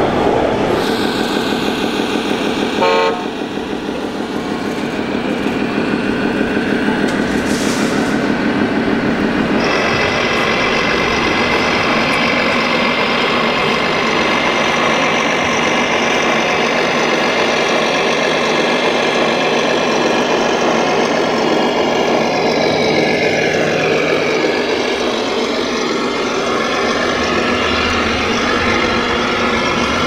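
Sound modules of radio-controlled model trucks playing engine and horn sounds, a steady drone that changes pitch a few times and falls in pitch a little past the middle.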